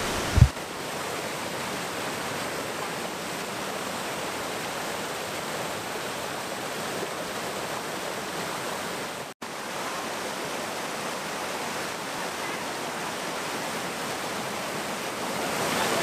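Steady rushing of whitewater cascading over rock ledges at a waterfall, an even wash of water noise. A brief low thump comes about half a second in, and the sound drops out for an instant about nine seconds in.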